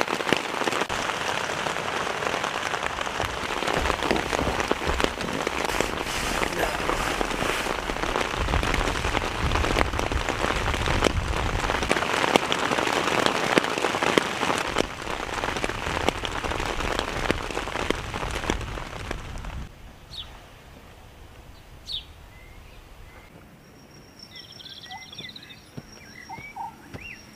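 Heavy rain pouring down in a steady, dense hiss with a low rumble. About twenty seconds in it cuts off abruptly to a much quieter forest with scattered short bird chirps, joined near the end by a steady high-pitched tone.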